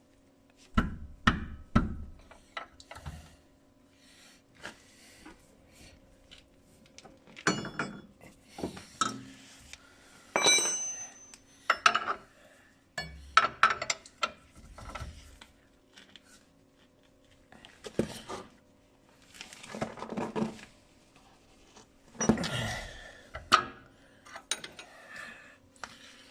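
Metal hand tools clanking and knocking against steel suspension parts and bolts as a car's suspension arm is bolted back together: irregular knocks, scrapes and clinks in bunches, with a brief ringing of struck metal near the middle. A faint steady hum runs underneath.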